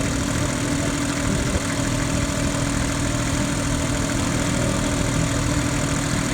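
An engine running steadily, with a constant low hum under a broad noise.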